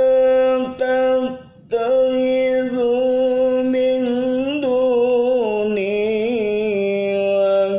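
A man reciting the Qur'an in melodic tilawah style, holding long, ornamented sung notes. There is a short pause about a second and a half in.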